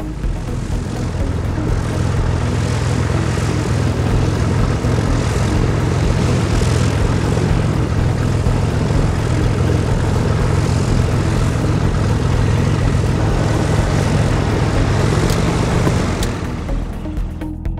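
Single-engine light airplane's turbocharged piston engine and propeller running at low taxi power: a steady low drone that fades near the end.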